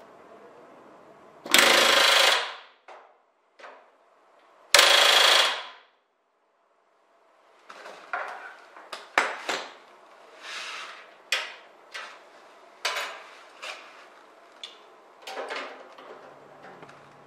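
Pneumatic rivet gun firing two bursts of about a second each, some three seconds apart, driving rivets into an aluminium aircraft spar. Later comes a run of light metallic clicks and knocks from hand tools and parts being handled.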